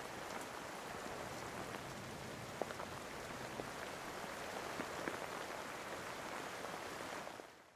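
Steady rain-like hiss with a few faint ticks scattered through it, fading in at the start and fading out near the end: a sound bed under the title cards.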